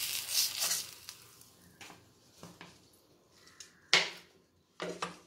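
Spatula scraping a cooked dosa off a hot dosa tawa, fading in the first second. About four seconds in, a sharp clatter of the spatula against the plate as the dosa is put down, with another knock shortly before the end.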